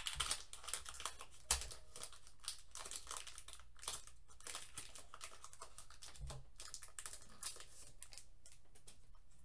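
Foil wrapper of a Pokémon trading card booster pack crinkling and tearing as it is peeled open by hand, a run of small crackles with one sharper snap about a second and a half in, thinning out as the cards are drawn out near the end.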